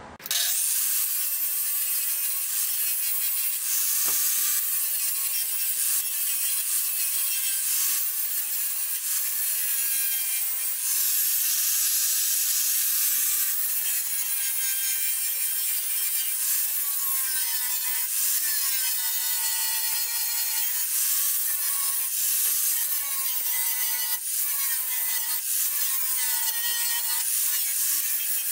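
Angle grinder with an abrasive disc grinding down weld beads on a welded-in steel patch panel. It spins up right at the start, then runs continuously, its high whine dipping in pitch and recovering over and over as the disc is pressed onto the metal and eased off.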